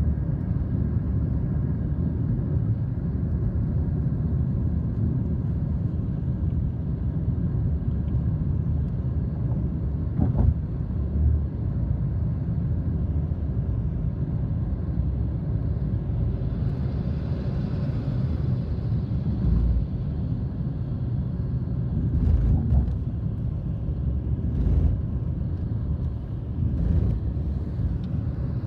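Steady low road rumble of a moving car heard from inside the cabin, with a few short knocks from bumps. A fainter, higher rushing noise swells and fades about halfway through.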